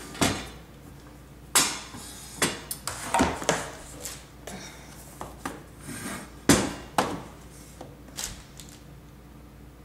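Handling clatter of a mandoline slicer and its parts: a series of sharp knocks and clacks as pieces are moved and set down on a hard surface, thinning out near the end.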